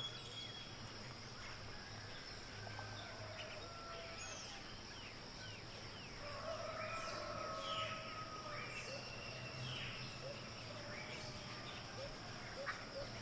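Faint wild-forest ambience: a steady high insect drone with scattered bird chirps and whistles, which become busier from about halfway.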